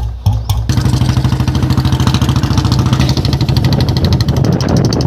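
Royal Enfield Bullet's single-cylinder engine and exhaust: a few slow idle thumps, then revved up sharply about half a second in and held at a steady higher speed.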